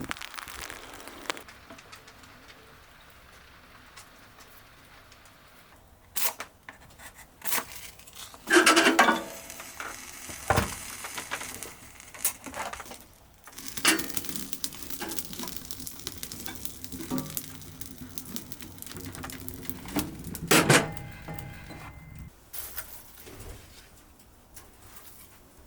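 Scattered clinks, knocks and clatters of objects being handled, the loudest about a third of the way in and again near the end, over a faint steady hiss.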